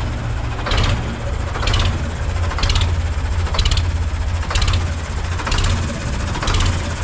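Modified Ford 3600 tractor's engine idling through a tall vertical exhaust stack: a deep, steady rumble with a sharper hiss about once a second.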